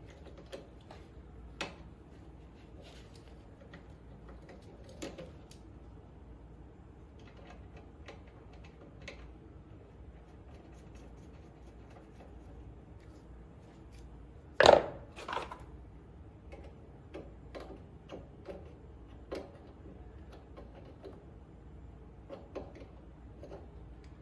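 Scattered small clicks and taps of hand tools and metal parts during repair work on the mower's wiring, with one louder knock about two-thirds of the way in, followed quickly by a second.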